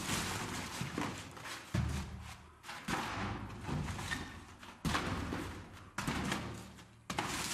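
Cardboard cartons and plastic wrappers used as packing filler being pulled out of a cardboard box: rustling and crinkling with dull thuds, in repeated bursts about a second apart.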